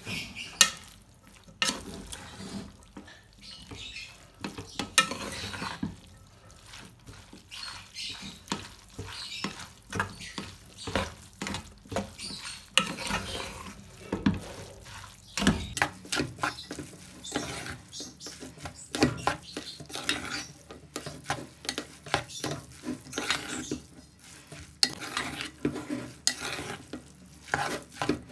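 Wooden spatula stirring and tossing spaghetti in a metal pot, with irregular knocks and scrapes against the pot.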